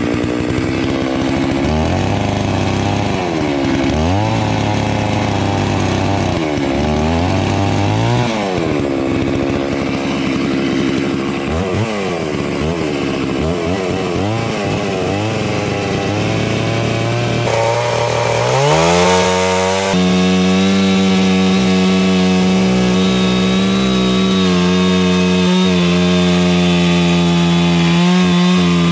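Large 660-class two-stroke chainsaw cutting into a tree trunk, its engine speed rising and sagging repeatedly under the load of the cut. About eighteen seconds in it climbs and holds a steady high pitch.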